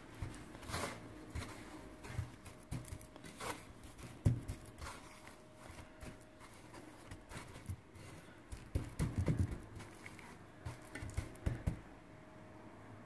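A hand pressing and patting an egg-coated veal cutlet into breadcrumbs in a stainless steel tray: irregular soft pats, crumb rustling and scrapes on the metal, busiest about nine seconds in. A faint steady hum sits underneath.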